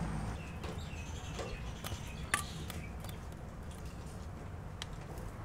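Steady low background hum with a few light clicks and one sharper click about two seconds in, from metal tongs handling stewed beef in a stainless steel bowl.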